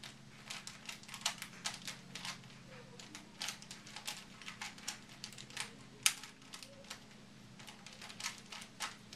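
Rubik's Cube being turned fast during a timed solve: irregular plastic clicks and clacks of the layers rotating, several a second, with one sharper clack about six seconds in.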